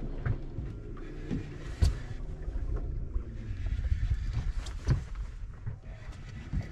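Water and wind around a center-console boat on the open ocean: a steady low rumble with a few short, sharp knocks against the hull.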